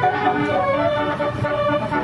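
Basuri musical air horn playing a melody in held notes that step from pitch to pitch.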